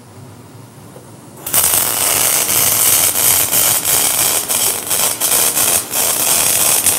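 MIG welding arc on a steel tube frame: a loud, steady, dense crackle that starts abruptly about a second and a half in, with brief dips as the arc flickers.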